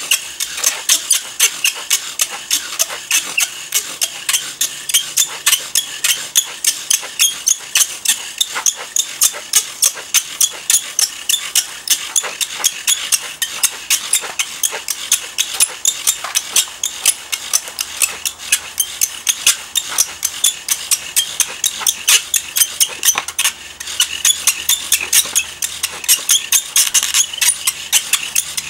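Bow drill fire-making: a wooden spindle spun back and forth by a corded bow in a charred wooden fireboard, squeaking and grinding with each stroke at about three to four strokes a second. The friction is building heat to make an ember, and the rhythm holds steady apart from a brief break about four-fifths of the way through.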